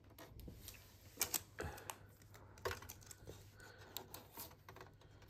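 Faint, irregular clicks and light taps, like small objects being handled.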